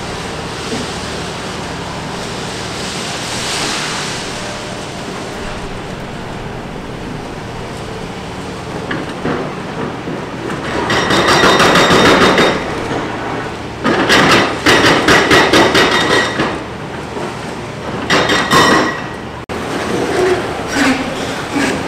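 Large excavator demolishing concrete: the engine runs steadily, then from about halfway there are three loud bursts of rapid metallic pounding and ringing as the machine works against the structure.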